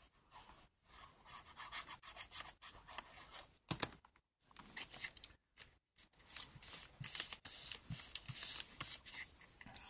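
Hands crumpling a small piece of glued paper and rubbing it flat onto a brown packing-paper pocket. Irregular rubbing and brushing strokes, louder in the second half, with a sharp crackle about four seconds in.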